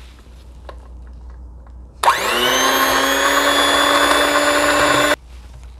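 Electric hand mixer switched on about two seconds in, its motor spinning up quickly to a steady whine as the beaters cream butter and sugar, then switched off abruptly about three seconds later.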